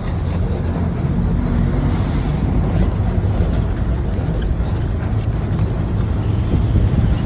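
Steady low rumble of a moving bus, engine and road noise heard from inside the bus.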